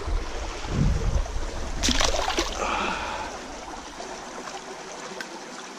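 Water running and trickling among rocks at a pool's edge, with a short burst of louder noise about two seconds in.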